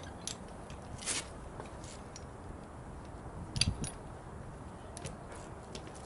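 Scattered light metallic clinks and ticks with a duller knock about midway, from a steel chain being handled and wrapped around a truck tire to squeeze the bead into seating.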